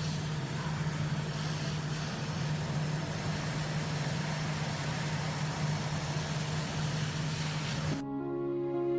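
Steady low machine hum with a hiss, like a small motor running. It cuts off suddenly about eight seconds in and soft background music with held notes takes over.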